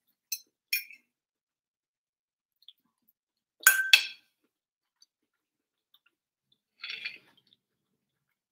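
Metal fork clinking twice against a plate, sharp and ringing briefly, a little under four seconds in, with a few fainter short clicks and small eating sounds around it.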